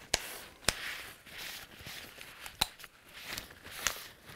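Paper towel rubbing over an AR-15 rifle as it is wiped down, with soft rustling and four sharp clicks spread through.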